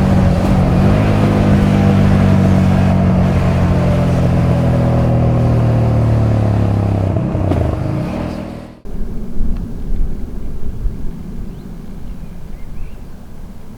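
Honda Transalp 700 motorcycle engine and exhaust running at steady revs, dipping briefly in pitch before cutting off abruptly about two-thirds of the way through. After the cut, a low rumbling noise with gusty swells.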